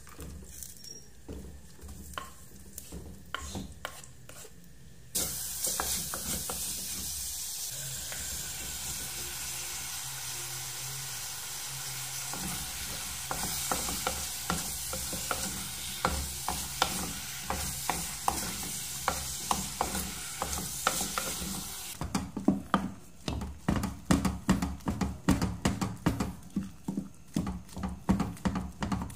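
Food sizzling in a clay pot while a wooden spoon stirs onions and squash, the sizzle coming in suddenly about five seconds in. Near the end, repeated strokes of a wooden spatula stirring and scraping through cooked mung beans in a steel pot, about two a second.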